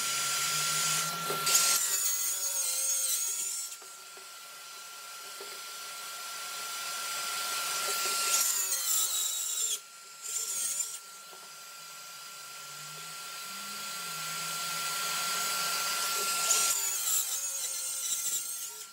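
Cordless circular saw running and cutting plywood along a clamped straightedge. Three passes, each growing louder over several seconds and then dropping off.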